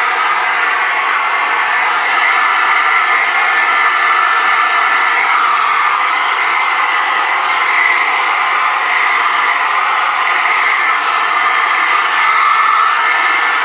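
Hairdryer running continuously, a steady rushing blow of air with a thin high hum over it.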